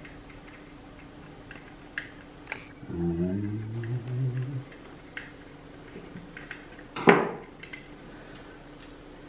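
Small metal clicks and taps of a screwdriver working a screw out of a red part of a mini metal lathe, with a louder knock about seven seconds in as the part or screw is set down on the bench.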